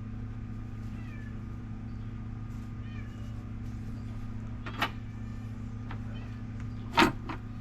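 A cat meowing: a short call about five seconds in and a louder meow near the end, over a steady low hum.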